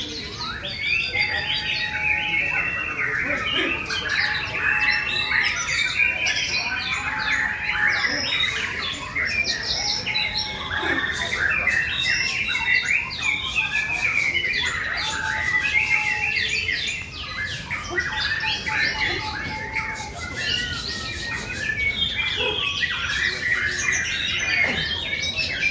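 Many caged songbirds, white-rumped shamas (murai batu), singing at once in a bird-song contest: a dense, overlapping chorus of fast, varied phrases. A plain whistled note repeats every couple of seconds beneath it.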